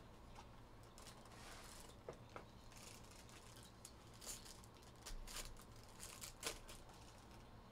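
Faint crinkling of a clear plastic wrapper and a few soft clicks as a trading card box is opened and its cards unwrapped.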